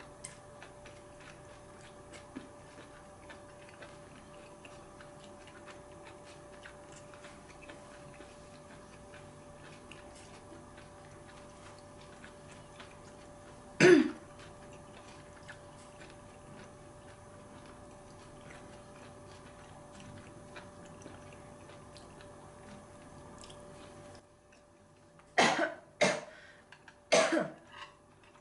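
A person eating, with faint chewing clicks over a steady hum, coughs once sharply about halfway through, then three times close together near the end.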